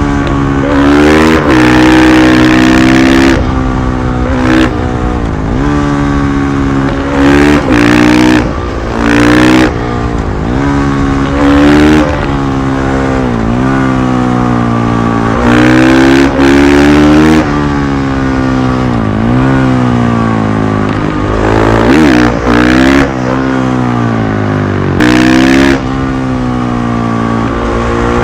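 KTM 500 EXC-F supermotard's single-cylinder four-stroke engine being ridden hard. The engine note rises with the throttle and drops back over and over, with several short, louder bursts of full throttle.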